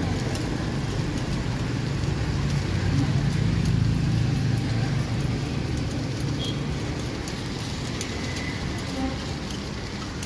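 Low rumble of road traffic that swells about three seconds in and then slowly fades, like a vehicle passing. Faint light clicks of metal picks turning takoyaki in a cast-iron pan sound over it.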